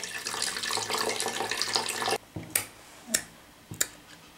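Water pouring from a plastic bottle into a plastic blender jar, stopping suddenly about two seconds in. After it come a few short, sharp knocks.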